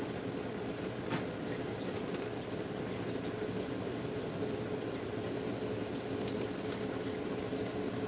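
Steady background hum with a faint steady tone. A few light clicks and taps come from a display control box being handled and set in place, one about a second in and a few more later on.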